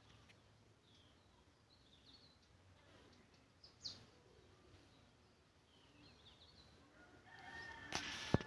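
Faint bird calls: short high chirps here and there, one clearer about four seconds in. Near the end comes a louder noisy stretch with a sharp click.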